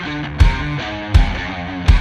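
Music with guitar over a heavy, steady drum beat, about one beat every three-quarters of a second.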